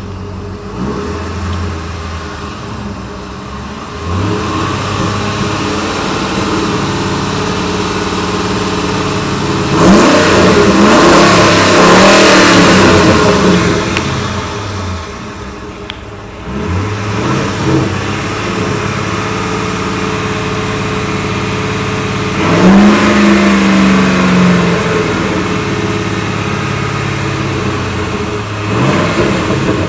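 Ford F-150 Saleen S331's naturally aspirated 5.4-litre V8 being revved repeatedly over idle, heard at its side-exit exhaust. The longest and loudest rev comes about a third of the way in and is held for a few seconds. Another strong rev comes about two-thirds through, with shorter blips between.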